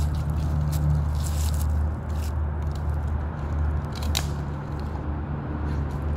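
Dry fallen leaves crackling and crunching underfoot in scattered clicks, over a steady low hum.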